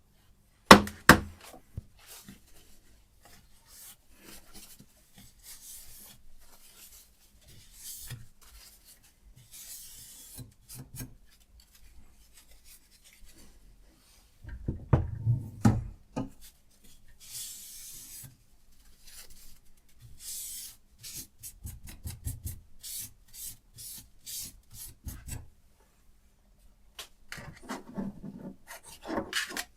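Diamond sharpening stone on a Hapstone RS guided sharpener scraping along a knife edge in short repeated strokes. Louder knocks of handling the sharpener come about a second in, in a cluster around the middle, and near the end.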